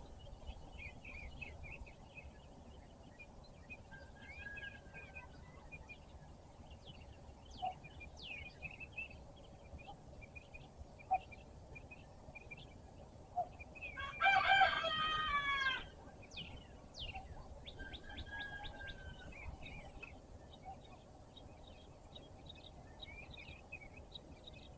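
A rooster crows once, about halfway through, a single call of under two seconds and the loudest sound. Small songbirds chirp and sing throughout.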